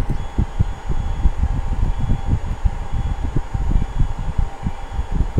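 A fan running steadily, with a faint high whine over an uneven low rumble.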